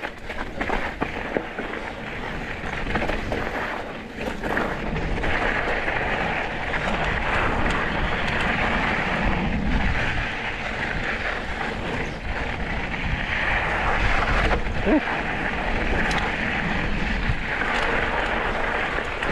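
Mountain bike riding over dry dirt and rocky singletrack: tyres crunching on the trail under a steady rush of wind on the microphone, with occasional knocks as the bike goes over rocks.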